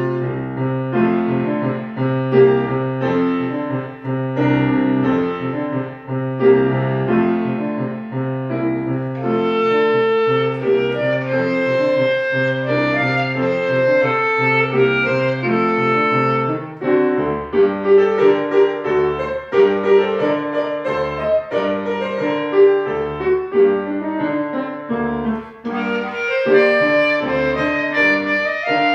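A solo melody instrument and piano playing a classical concert piece, with sustained melody notes over piano chords. About halfway through, the piano shifts to a pattern of short repeated low bass notes.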